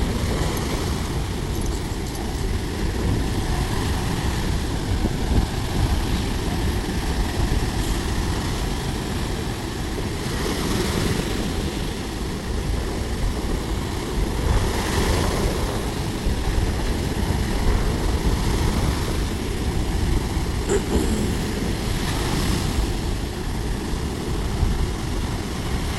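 Sea waves washing onto the beach, with a surge of surf every few seconds over a steady low rumble of wind on the microphone.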